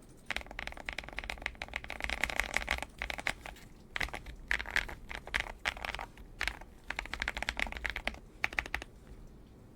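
Typing on a YUNZII AL66 aluminium mechanical keyboard: quick runs of key clacks in several bursts with short pauses, stopping shortly before the end.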